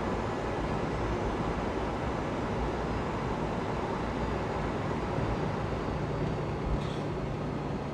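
Steady jet engine and airflow noise heard inside the cabin of a Boeing 757-200 powered by Pratt & Whitney PW2037 turbofans. A low steady hum joins in about five and a half seconds in.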